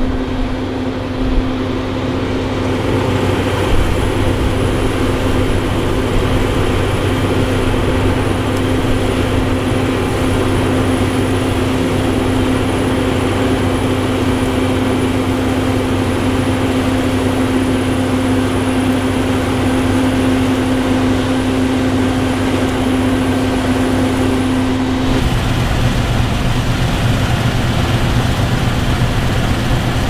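Steady mechanical whine with a held pitch, typical of a small drone's propellers. About 25 seconds in it changes abruptly to a lower, steady engine hum from a combine harvester and tractor running.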